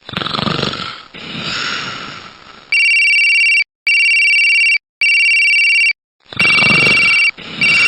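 Electronic ringing alarm tone, a steady high beep that sounds in roughly one-second pulses with short gaps. It is preceded by a couple of seconds of noisy rushing sound, which comes back under the later pulses.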